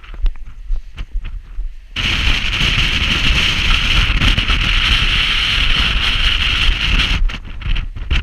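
Wind gusting over the ridge and blowing on the microphone. It is loud and steady from about two seconds in until near the end. Before and after the gust it is quieter, with footsteps scuffing on the stony trail.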